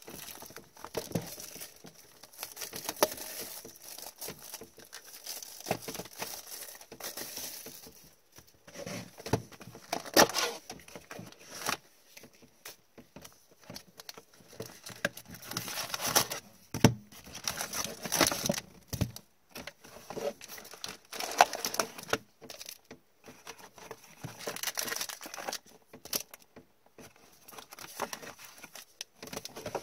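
Crinkling and rustling of cardboard and wrapped card packs as a hockey card box is opened and its packs are pulled out by gloved hands, in irregular bursts with short pauses and small clicks.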